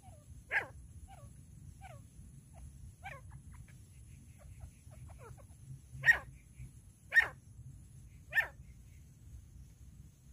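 Female grey francolin calling: sharp, loud call notes, the three loudest about a second apart in the second half, with softer short notes that slur downward in between.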